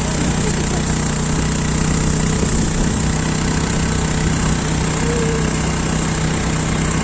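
Motorcycle engine running at a steady, unchanging speed.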